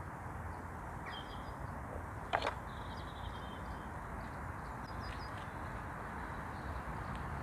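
Steady outdoor background noise with a few faint high chirps, and one sharp click a little over two seconds in.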